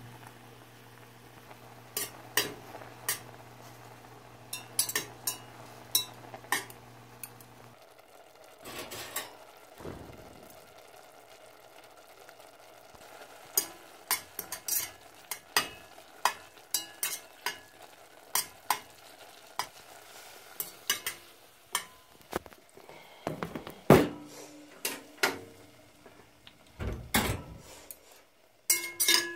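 A utensil stirring noodles in a stainless steel pot, with many sharp clicks and knocks of the utensil against the metal, the loudest about two-thirds of the way through. A steady low hum runs under the first several seconds and then stops.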